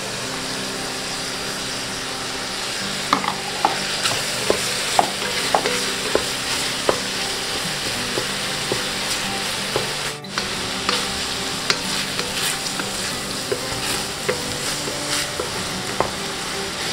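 Bacon, sausage and diced ham sizzling as they fry in a stainless steel pot. From about three seconds in, a spatula stirring them clicks and knocks against the pot.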